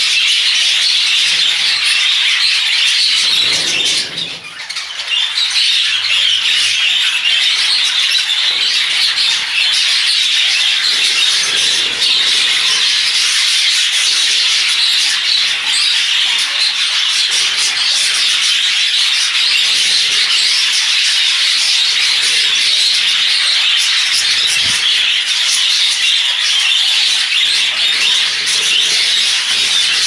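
A large flock of budgerigars chattering continuously, a dense high-pitched din of many overlapping calls, dipping briefly about four seconds in.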